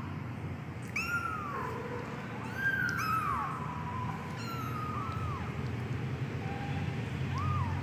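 Young Persian kitten mewing repeatedly: about six short, high cries that arch up and fall away, over a steady low hum.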